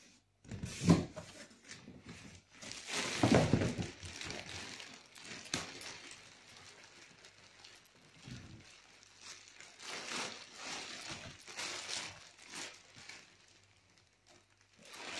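Clear plastic packaging crinkling and a cardboard box's flaps rustling as wrapped parts are handled inside the box, in irregular bursts. There is a sharp knock about a second in, and the rustling is loudest a few seconds in.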